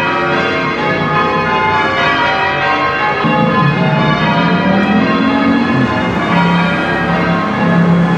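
Cathedral bells being change-rung, many bells sounding in a continuous overlapping peal.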